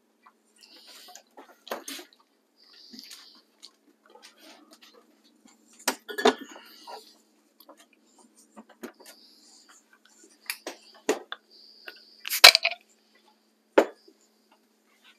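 Kitchen clatter: scattered clicks and knocks of utensils, dishes and a bottle on the counter, the loudest knock about twelve seconds in, over a faint steady hum.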